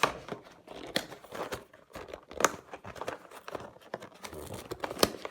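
Cardboard and plastic packaging being torn and crinkled open by hand, with irregular sharp rips and rustling; the box is tightly sealed.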